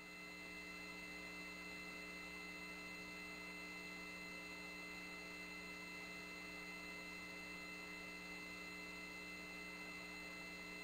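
Faint, steady electrical mains hum on a mission-control voice-loop audio line, a low hum with a few thin steady high whines above it.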